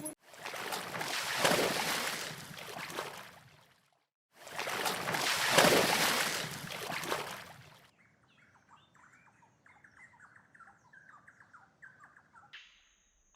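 Two long swells of rushing noise, each about three and a half seconds and the loudest sounds here, followed by faint, quick bird chirps in the second half.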